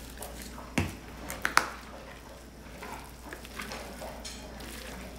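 Gloved hands tossing and working moist shredded pulled pork on a metal sheet pan, a soft wet squishing and rustling. Sharp knocks come at about a second in and again, loudest, at about a second and a half.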